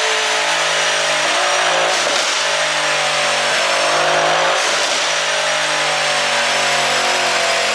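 Mercedes-AMG GLC63 S twin-turbo V8 with a pop-and-crackle exhaust tune, accelerating under load. The engine note climbs slowly and drops at upshifts about 2 s and about 4.5 s in, with a short crackle around each shift.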